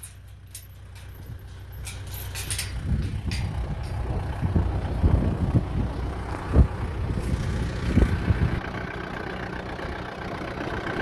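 Vehicle engine running steadily. It gets louder about three seconds in, and several knocks and rattles come over it in the middle of the stretch.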